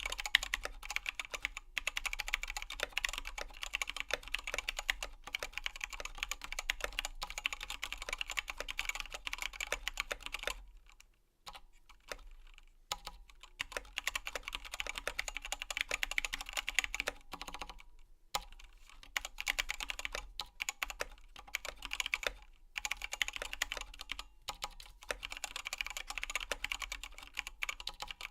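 Steady typing on a KBDfans KBD19X mechanical keyboard with tactile Zealio switches, XDA-profile keycaps and lubed screw-in stabilizers: a dense run of key clacks, broken by a pause of a couple of seconds partway through.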